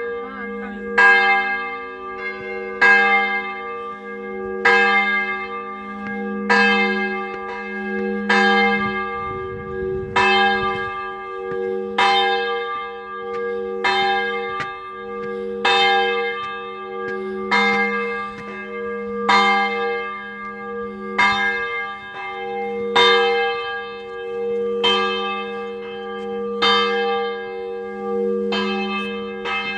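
A church bell tolling at a steady, even pace, struck about once every two seconds, its hum ringing on between strikes.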